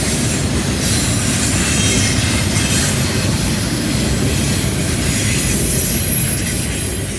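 CN freight train cars rolling past on a curve: a steady rumble of wheels on rail with high wheel squeal from the curve.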